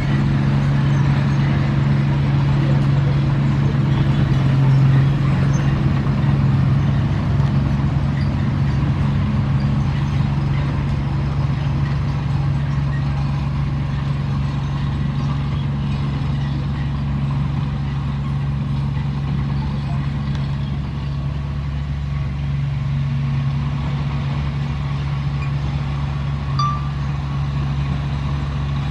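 Diesel engine of a heavy earthmoving machine running steadily under work, with a constant low hum that eases slightly after the first several seconds.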